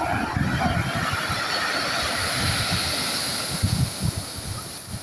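Sea waves washing in, a steady hiss of surf that swells through the middle and eases near the end, with wind buffeting the microphone in low, uneven rumbles.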